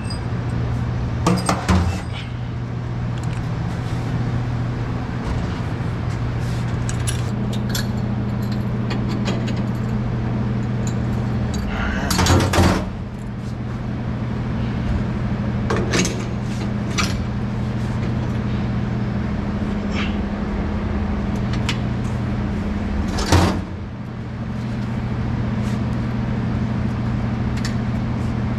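Metal hose couplings and fittings clanking as a tanker's discharge hose is hooked up, four loud clanks spread out with smaller knocks between, over a steady low mechanical hum.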